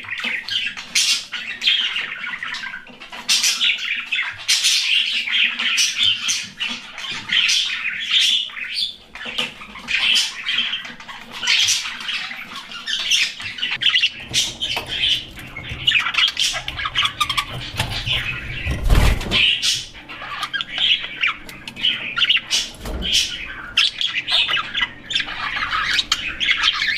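Parrots calling in a rapid, continuous run of sharp, high, harsh calls. A low rumble joins about halfway through, with two dull thumps in the second half.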